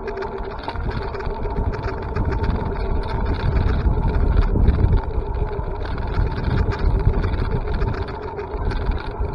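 Wind rumbling and buffeting on the microphone while travelling along a road, over a steady hum that holds two pitches throughout.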